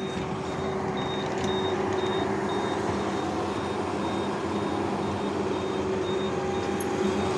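Skid steer engine running, with a high electronic warning beep repeating about twice a second; the beeping is taken as the sign of a battery problem that keeps making the machine cut off.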